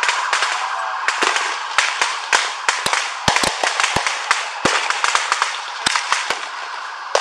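Commercial fireworks going off all around: a rapid, irregular string of sharp bangs, about twenty, over a continuous hiss, thinning out in the last second.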